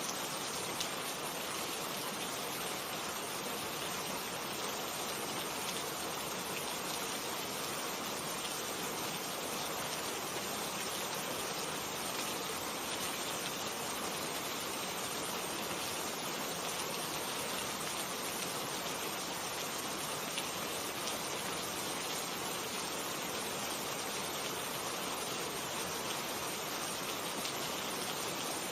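Steady rain falling, an even hiss with no thunder or other events.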